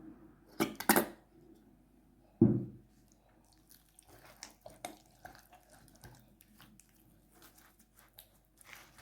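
Hands working ketchup into a raw whole chicken: two sharp wet squelches near the start and a heavier thud about two and a half seconds in, then faint, scattered wet squishing and patting.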